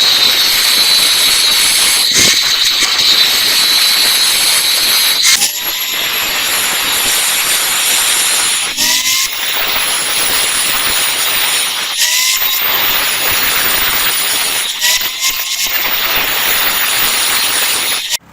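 Electric arc welding: a steady loud frying hiss from the arc, breaking off briefly three times as the arc stops and restarts, and ending abruptly.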